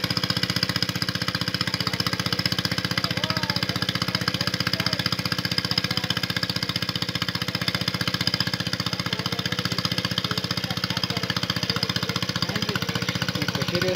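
A small engine running steadily at a constant speed, with a fast, even knocking beat.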